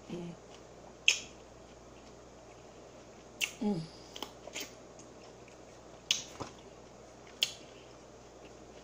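Close-up eating sounds: four sharp, crisp bite or mouth-smack clicks spaced a second or more apart, with a brief hummed 'mm' about three and a half seconds in.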